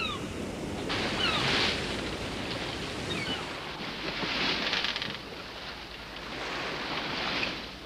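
Sea waves and wind around a sailboat's hull, with surges of splashing water about a second in, around four seconds and near the end.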